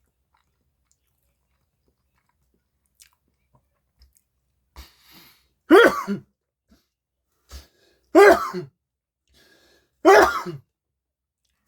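A man sneezing three times, loudly, about two seconds apart, each sneeze preceded by a short in-breath, set off by dust in his nose.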